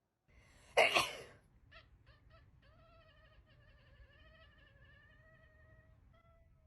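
A loud, short, hissing burst about a second in, followed by a few brief calls and then one long, wavering animal call lasting about three seconds.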